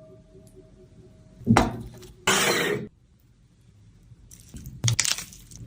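Kitchenware clinking and knocking: a ringing note fading out, a sharp knock, a short rasping scrape, then a brief clatter near the end.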